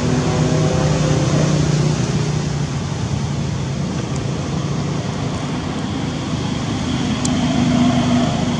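A steady low motor hum over an even background noise, stronger in the first couple of seconds and again near the end.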